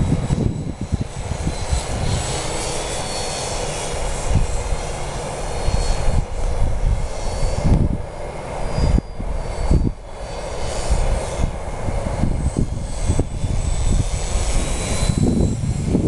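Electric motor and propeller of a ParkZone Albatros RC biplane whining in flight, the thin high pitch wavering up and down with throttle, under heavy gusting wind buffeting the microphone.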